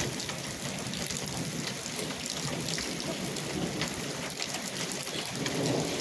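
Steady heavy rain falling, dense with the ticks of drops hitting surfaces, with a low rumble swelling near the end.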